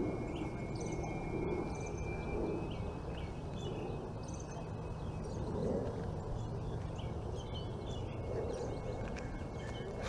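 Outdoor ambience: a steady low rumble with faint, scattered bird chirps, and a thin high tone in the first few seconds and again near the end.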